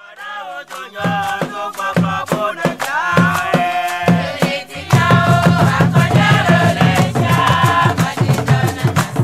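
Background music with a singing voice over quick, regular percussion clicks. A heavier steady bass beat comes in about five seconds in.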